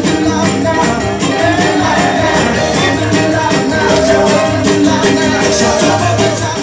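Upbeat dance music with a steady beat.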